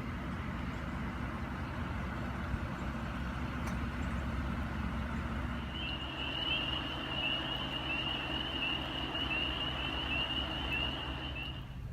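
Motor vehicle engine running steadily at a low hum. About halfway through, a high wavering tone starts, holds for about six seconds and then stops.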